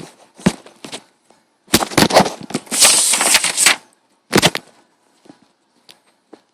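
Handling noises: a few sharp knocks, then about two seconds of dense clatter with a harsh rasping noise, and one more knock near the end.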